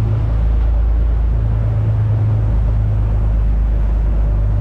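Fishing boat's engines running steadily under way: a loud, constant low drone.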